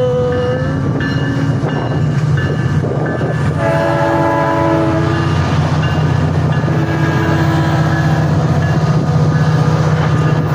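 A train's cars rolling past with a steady low rumble, and about four seconds in a locomotive horn sounds one chord-like blast of about a second and a half.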